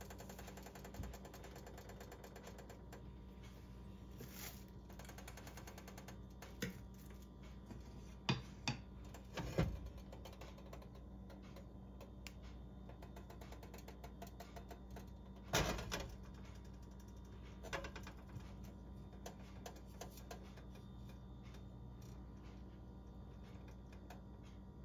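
Frying pan of cooking oil heating on an electric stove: faint, fine ticking and crackling over a steady low hum. A few louder knocks come near the middle.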